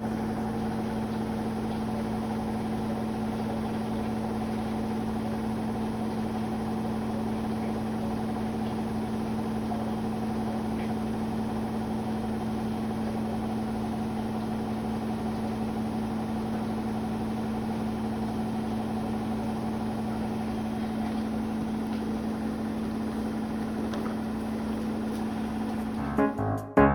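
Washing machine in its spin cycle, a steady unchanging hum with a constant low tone. Piano music starts near the end.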